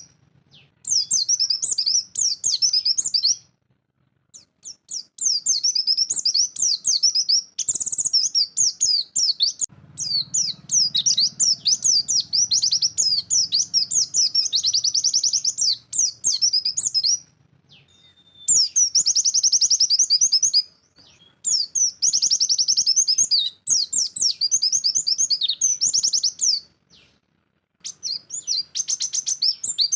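A white-eye (pleci) singing in the rapid 'nembak' style: long runs of fast, high twittering song, broken a few times by pauses of about a second.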